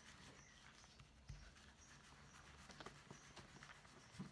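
Near silence with faint wet rubbing and a few small clicks from hands working a soapy, wet merino-silk felt pouch on a textured mat.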